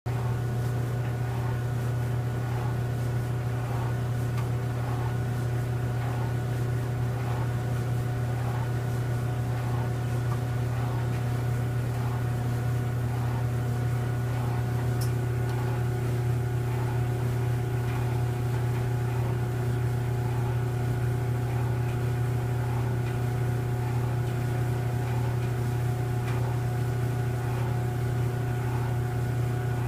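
Stacked laundry-centre clothes dryer running with its door open, its drum tumbling a sheet. A steady hum, with a faint light noise repeating a little faster than once a second.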